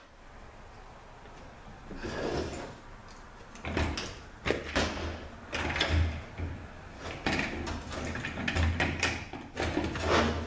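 Metal scraping, clicking and knocking as the front oil pump of a Nissan RE4R01A automatic transmission is pried and worked loose from the case with a pry bar. It starts about two seconds in, with heavier knocks and dull thuds from about four seconds on.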